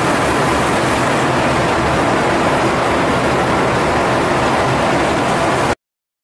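Steady rush of airflow and jet engine noise heard inside the flight deck of a U.S. Air Force RC-135 in flight. It cuts off abruptly near the end.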